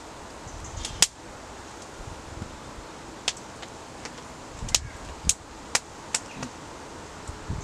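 An eating utensil clinking against a metal camping pot while food is eaten from it: a handful of separate sharp clinks, the loudest about a second in.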